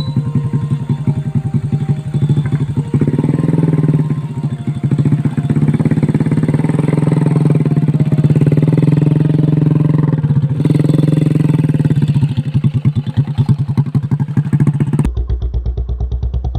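Motorcycle engine running steadily, a little louder from about three seconds in. Near the end it cuts off abruptly into a different, thinner sound.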